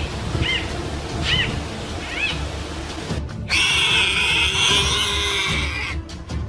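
An animal giving short, high, rising-and-falling calls about once a second; about three seconds in the sound cuts off abruptly and a dense, steady high-pitched sound takes over.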